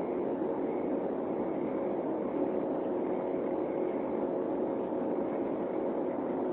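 Steady cabin noise of an Embraer 195 airliner in flight: the even rush of its General Electric CF34 turbofan engines and the airflow, with a faint steady hum.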